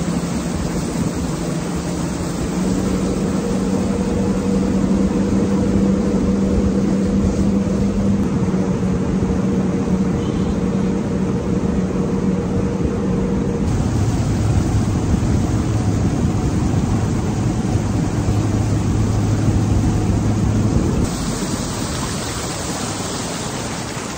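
Motorboat running at speed: a steady engine hum under heavy wind and water rush. The engine tone shifts abruptly to a lower pitch about fourteen seconds in, and the sound changes again about twenty-one seconds in.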